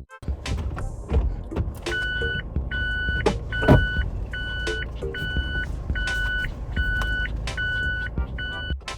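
A car's electronic warning beep repeating about every two-thirds of a second, about eight times, over a steady engine and road rumble.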